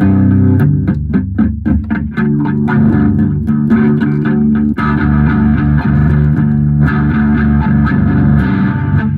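Instrumental music led by plucked guitar over a bass line.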